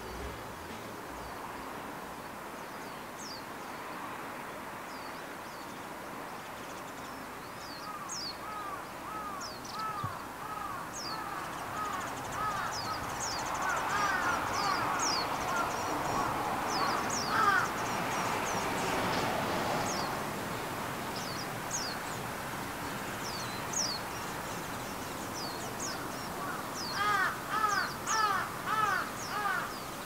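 Crows cawing in runs of short, repeated calls, the loudest run of about five caws near the end. Thin, high chirps of smaller birds sound throughout.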